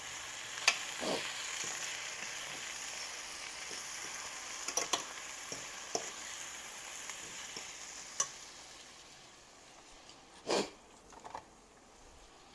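Lion's mane mushroom crumble with black beans, onions and peppers sizzling in a stainless steel skillet, with a fork scraping and clinking against the pan several times. The sizzle dies down near the end, where the loudest clink comes.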